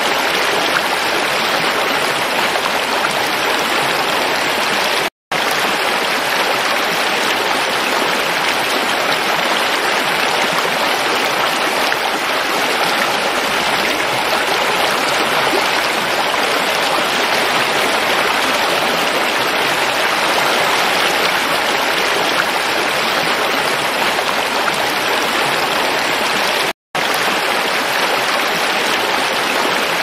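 Shallow, fast-flowing rocky stream rushing and splashing over stones: a steady, even rush of water. It cuts out twice for a split second, about five seconds in and a few seconds before the end.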